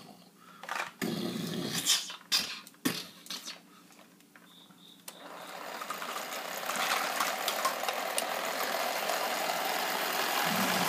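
Irregular clicks and knocks of plastic toys being handled. From about five seconds in, a small motor starts and runs steadily, slowly getting louder.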